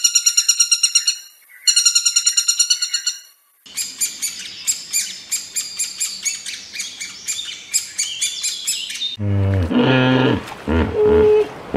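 Woodpecker calls: two bursts of a fast, high rattling call, then several seconds of busy, high bird chirping. About nine seconds in, this gives way to low, deep hippo grunts.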